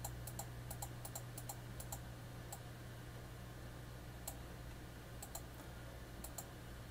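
Computer mouse clicking: short sharp clicks, some single and some in quick pairs, at irregular intervals, over a steady low hum.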